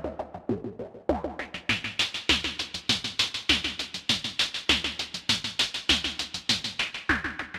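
Moog DFAM analog percussion synthesizer playing a sequenced, funky drum pattern: short pitched hits that drop in pitch, a deep kick and bright noisy clicks. The bright top end drops away for about the first second, then returns.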